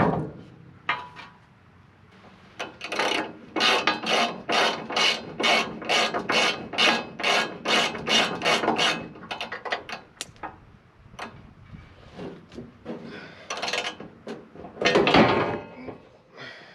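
Rhythmic rasping strokes of a hand tool on steel, about three a second for several seconds, then a few scattered strokes and one longer, louder scrape near the end.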